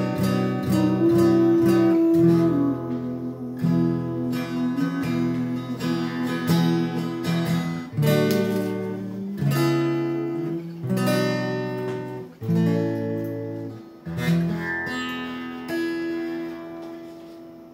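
Acoustic guitar strumming chords, quick strokes at first, then chords restruck and left to ring. The last chord fades out near the end as the song finishes.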